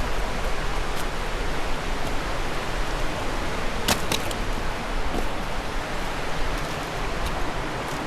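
Steady rush of a fast mountain river, with a few sharp clicks, the clearest about four seconds in.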